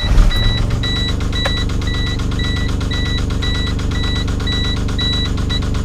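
A 1997 Geo Metro's 1.0 L three-cylinder engine catches with a burst and settles into a steady idle. The car's warning chime beeps about twice a second and stops near the end. The engine has the knock of a spun rod bearing.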